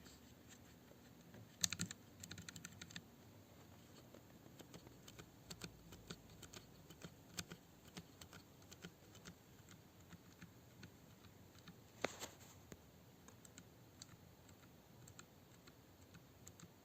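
Faint, irregular clicks of a bare Gateron Brown low-profile tactile switch pressed over and over with its keycap removed, picked up very close; the switch itself is nearly silent, with a quick run of clicks a couple of seconds in and one sharper click near the middle.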